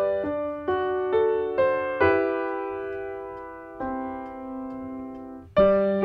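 Background keyboard music with a piano sound: a slow melody of single struck notes about half a second apart, then two longer notes left to fade, and a new note near the end.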